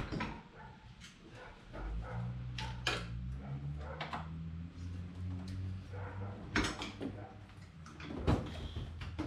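Scattered knocks and clanks of hand tools and metal parts as an ATV engine is worked loose in its frame, the loudest near the end. A steady low hum sets in about two seconds in.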